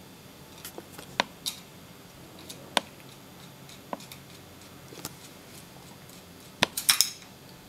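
Scattered small clicks and taps, about ten spaced irregularly, with a quick cluster near the end: a screwdriver tip working against an electric iron's thermostat terminals and contacts to pry off the thermal fuse's wire connection.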